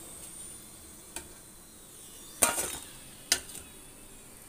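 Hot frying oil sizzling faintly while a perforated steel ladle lifts the fried pastries out and clinks against the metal vessels three times. The clink about halfway through is the loudest and rings briefly.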